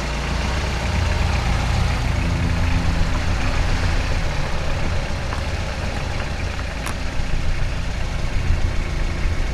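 Van engine running steadily as it drives over a dirt track: a continuous low engine rumble with tyre and road noise.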